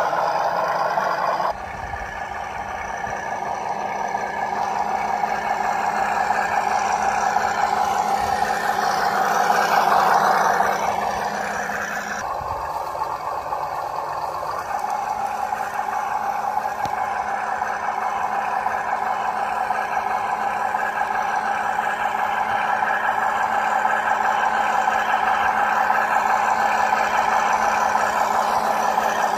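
Electric drive motor and gearbox of a WPL B36 Ural RC model truck whining steadily as it crawls over rocky dirt. The sound shifts abruptly about a second and a half in and again around twelve seconds.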